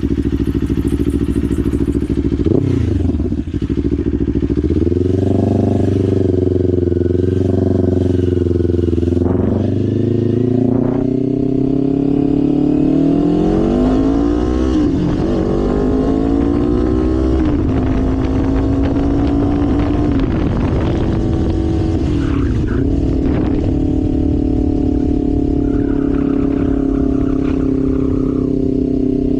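Kawasaki Ninja 500's parallel-twin engine heard from on board while riding. Its pitch climbs as the bike accelerates, drops at a gear change, climbs again and drops, then holds steady at cruise.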